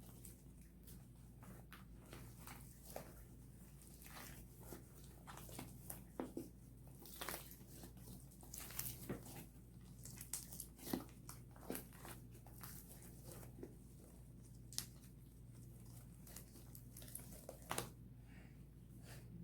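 Slime being mixed with colouring worked in, giving faint, irregular sticky clicks and crackles over a steady low hum.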